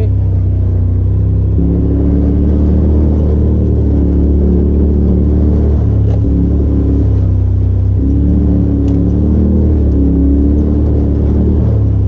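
Turbocharged Polaris RZR side-by-side driving a dirt trail. A loud, steady engine drone is heard from inside the open cab, its pitch shifting up and down a few times with the throttle.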